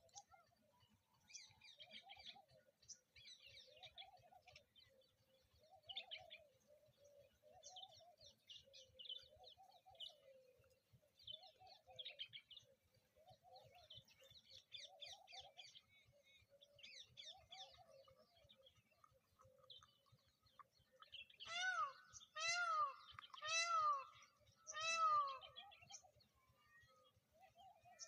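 Faint outdoor birdsong: small birds chirping and a lower warbling call repeating throughout. About three-quarters of the way through, four louder drawn-out calls come roughly a second apart, each rising and then falling in pitch.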